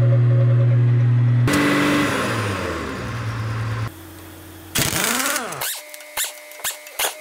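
A loud steady mechanical hum stops abruptly after about a second and a half, giving way to a noisier machine sound that winds down. About five seconds in, a large pneumatic impact wrench rattles in a short burst on a bolt of the roller drum's frame, followed by several sharp knocks.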